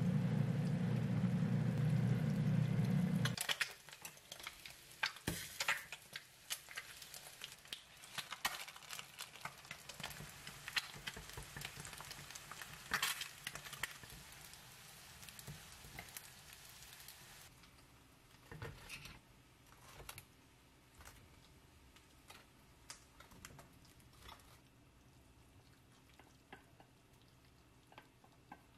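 Instant noodles being stir-fried in a hot pan with chopsticks: a sizzling hiss with frequent clicks of the chopsticks against the pan, dying down after about seventeen seconds to quieter, scattered taps. It opens with a steady low rumble that stops suddenly about three seconds in.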